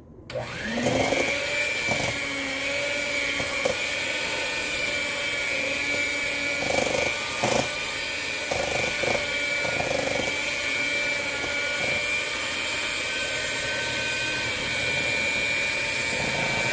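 Small electric hand mixer spinning up and running steadily with a high whine, its beaters whipping butter in a stainless steel bowl. A few knocks come as the beaters hit the bowl.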